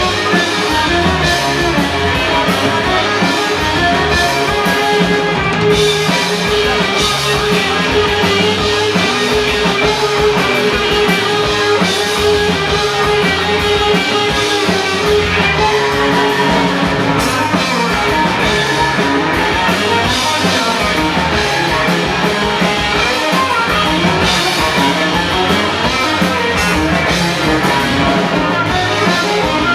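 Instrumental rock music: electric guitar over a drum kit, loud and steady with no singing.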